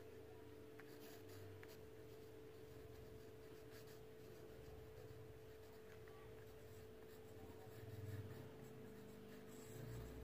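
Faint pencil scratching on paper as a name is handwritten in cursive, over a steady low hum.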